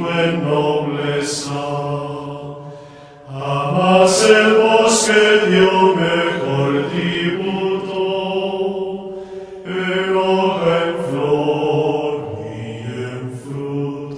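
Gregorian chant: a slow melody sung in long held notes, with brief breaks for breath about three seconds in and again near ten seconds.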